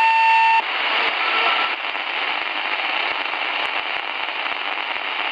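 Shortwave receiver tuned to a 2132 kHz railway radio channel: a steady beep ends about half a second in, then hiss and crackling static with no voice on the channel.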